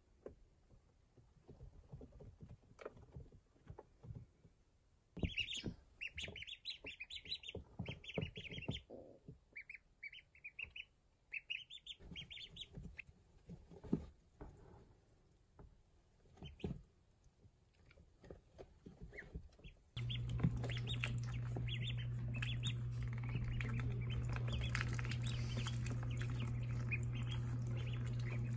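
Young ducklings peeping in high, rapid clusters, with scattered soft knocks from them moving about in the brooder. About two-thirds of the way through, a steady low hum starts suddenly and runs under the peeping.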